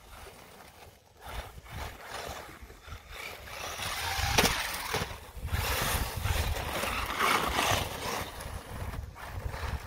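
Brushed electric motor and gears of a WLToys 12428-series RC off-road truck whirring as it drives over stone and climbs concrete steps, getting busier and louder from about four seconds in. A sharp knock about four seconds in as the truck bumps up a step. Wind rumbles on the microphone.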